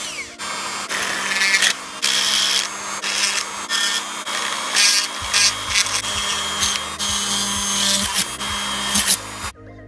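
Handheld rotary tool with a burr bit grinding into a black plastic model-kit part, swelling and easing in short passes and stopping shortly before the end. Electronic background music with a bass beat comes in about halfway.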